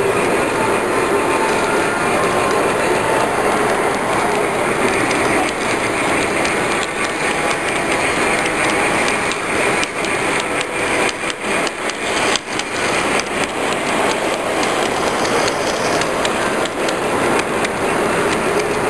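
G-scale model train's wheels and cars running on track, heard from a camera riding on the train: a steady dense clicking rattle, most marked a little past halfway through.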